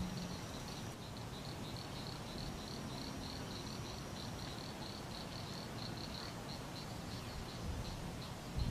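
An insect chirping steadily, a fast, even run of short high-pitched pulses, several a second, over a low background hiss, with a low thump at the very end.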